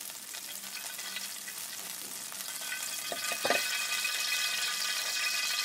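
Hot cooking oil sizzling in an aluminium karahi, the hiss growing louder about halfway through, with a couple of light knocks about three seconds in.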